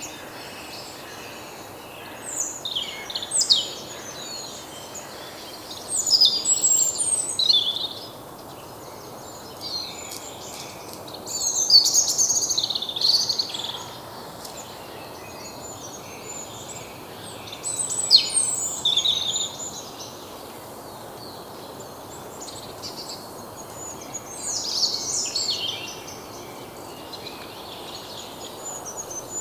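Songbirds singing: short phrases of high chirps and trills, one every few seconds, over a steady outdoor background noise.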